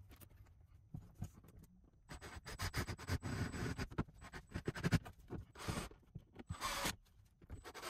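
Scraping, rubbing and knocking of pine framing pieces as they are worked into place against the camper's wall. A dense flurry of scratchy clicks starts about two seconds in, followed by two short, harsher scrapes near the end.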